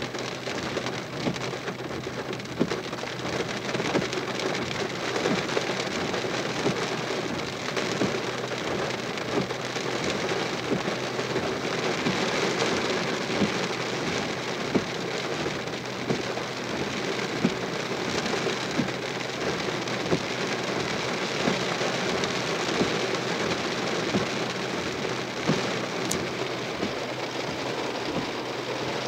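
Rain falling on a car's roof and windshield, heard from inside the car: a steady hiss dotted with many sharp ticks of individual drops.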